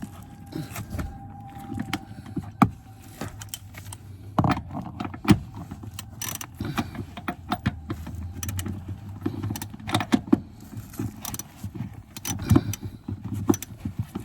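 Wrench or ratchet work on the seat's front mounting bolts: irregular metal clicks, clinks and knocks as the tool is fitted and turned against a stubborn nut.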